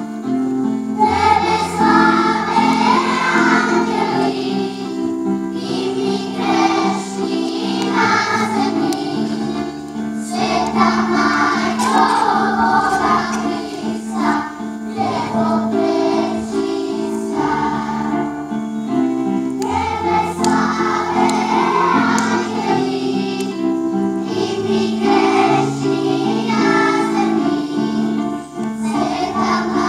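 Children's choir singing a song in continuous phrases, led by a conductor.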